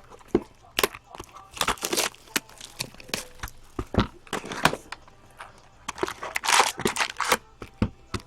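Trading card pack wrapper crinkling and tearing, with cards being handled: irregular sharp crackles and rustles, and a longer rustle about six and a half seconds in.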